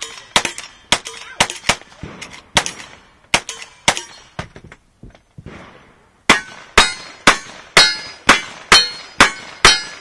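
Rapid gunshots from a lever-action rifle, each followed by the clang of steel targets ringing. After a short pause near the middle, a second string of about nine shots follows at roughly two a second, each with a clear ringing clang from the steel plates.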